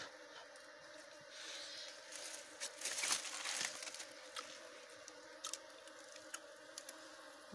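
Honeybees buzzing steadily at a nest in a hollow tree trunk while wax honeycomb is broken and pulled out by hand: a crackling, crunching tearing that builds from about a second in, is loudest about three seconds in, and ends with a few light clicks.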